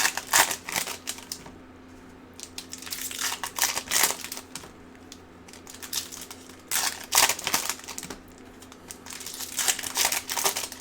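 Foil trading-card pack wrappers crinkling as hockey card packs are handled and opened, in about four bursts of rustling with quieter gaps between.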